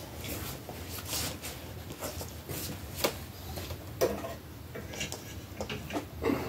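Plastic toys being handled and set down: scattered light clicks and taps, about eight spread irregularly, with soft rustling in between.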